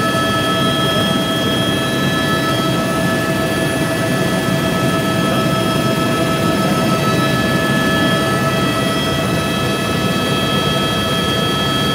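Helicopter in flight heard from inside the cabin: a steady engine whine with several high, unchanging tones over dense low noise from the engine and rotor, all loud and even throughout.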